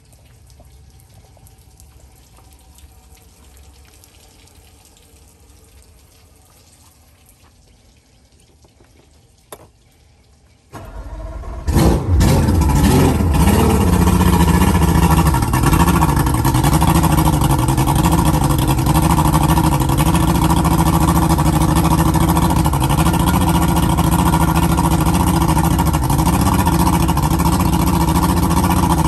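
Yamaha VMAX HPDI two-stroke V6 outboard, left sitting unused for a while. About eleven seconds in, after a quiet stretch with one click, it is cranked and catches. It then runs at idle, its pitch wavering a little before settling steady.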